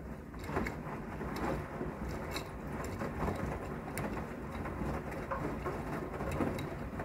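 Blomberg front-loading washing machine on a synthetics rinse: the drum turns wet laundry through water, giving irregular splashes and sloshing over a steady low hum. A dishwasher runs on a self-clean cycle in the background.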